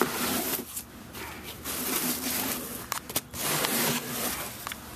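Hand and camera rubbing and scraping against a cardboard box in a run of rustling strokes, with a few sharp clicks about three seconds in.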